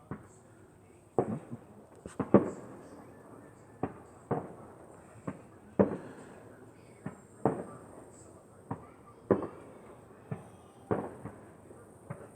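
Fireworks exploding overhead: a string of sharp bangs at uneven intervals, roughly one to two a second, each dying away quickly.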